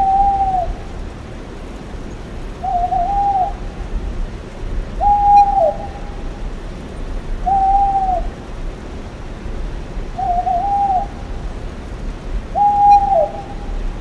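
An owl hooting: six short hoots, about one every two and a half seconds, each holding one pitch and then dropping away at its end.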